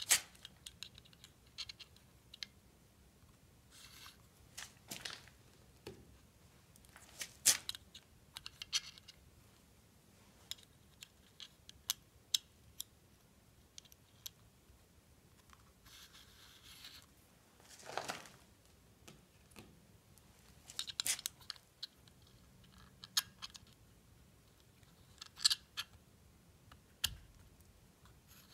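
Vanes being pushed by hand into the rotor slots of a 200-4R transmission front pump, and the rotor being turned to seat them: faint, irregular small metallic clicks and short scrapes, a few seconds apart.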